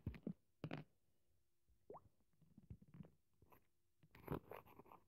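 Near silence: quiet room tone with a few faint, short clicks and noises scattered through it.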